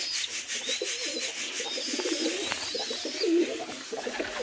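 Domestic pigeons cooing, call after call overlapping, low and wavering.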